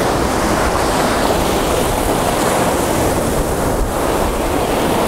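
Shallow beach surf washing in over the sand, a steady rush with no breaks.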